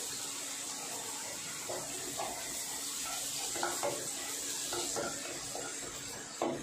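Chopped garlic sizzling steadily in hot ghee with cumin seeds in a nonstick kadai, tempering for palak paneer. A wooden spatula scrapes and knocks against the pan now and then as it is stirred.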